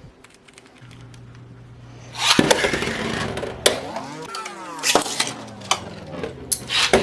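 Light clicks of plastic parts being handled, then about two seconds in Beyblade X spinning tops start up loudly: a rough whirring and scraping whose pitch glides up and down, broken by sharp clashes.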